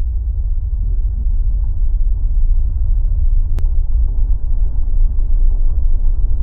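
Bubbling volcanic lava sound effect: a loud, deep, continuous rumble with an uneven churning texture. A single faint click about three and a half seconds in.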